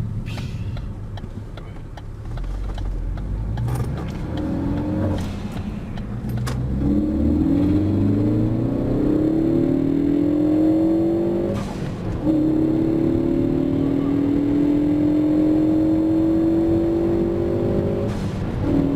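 2013 Ford Focus ST's turbocharged four-cylinder engine pulling hard through the gears, its note rising in pitch through two long runs. Each upshift, at about 12 s and again near the end, breaks the note with a short rush of air from the newly fitted blow-off valve venting.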